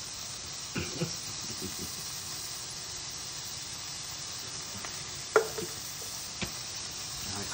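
Meat sizzling on a ridged grill pan on a stovetop, a steady hiss. A few short knocks come through it, the loudest about five seconds in.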